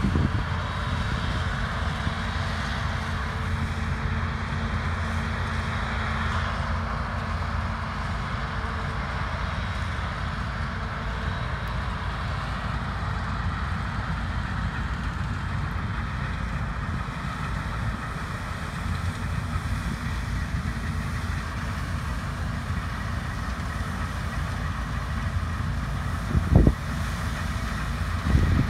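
Large diesel harvest machinery running steadily with a continuous low hum and mechanical noise, and one sharp knock near the end.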